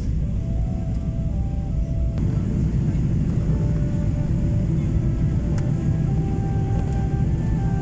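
Steady low rumble of an airliner cabin during descent to land: engine and airflow noise heard from a passenger seat.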